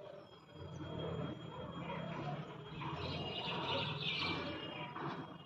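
Birds chirping, over a low steady hum.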